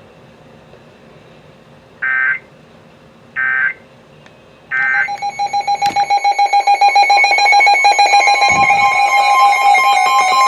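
Three short data bursts from an Emergency Alert System broadcast, the end-of-message code that closes the flash flood warning, a little over a second apart. About five seconds in, a loud electronic alert attention tone starts, pulsing at first and then holding steady.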